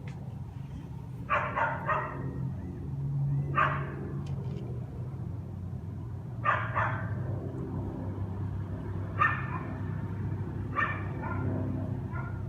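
A dog barking in short bursts of one to three barks every two or three seconds, over a steady low hum.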